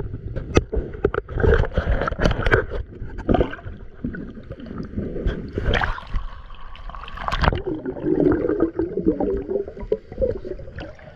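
Water splashing and gurgling, broken by irregular sharp knocks, with a longer bubbling gurgle about eight seconds in.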